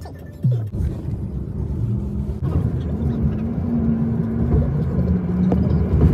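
Low rumble of road noise and engine hum inside a moving car, starting with a jump in level about half a second in.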